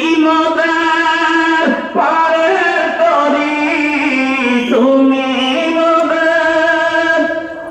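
A single voice chanting in long held notes that step up and down in pitch, with short breaks for breath about two seconds in and again near five seconds.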